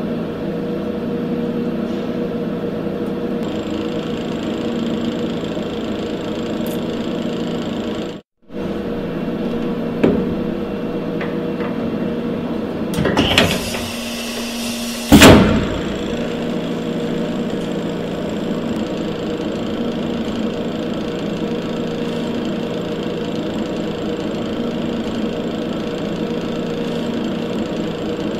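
Steady machine hum, with a sharp click about ten seconds in. About thirteen seconds in there is a short metallic scrape, then a loud metal clunk as the driven angle head is pushed into the machine's tool holder.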